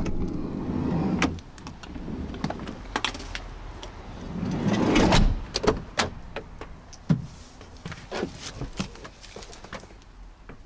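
A VW Caddy van's doors and latches being worked as someone moves from the back of the van into the driver's seat: handle and latch clicks, fabric rustling and knocks, with a louder stretch of door movement about halfway through.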